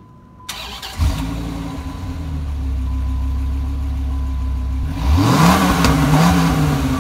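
Dodge Ram SRT-10's 8.3-litre Viper V10 starting about a second in and settling into a steady idle. About five seconds in it is revved once, the pitch rising, holding briefly and falling back near the end.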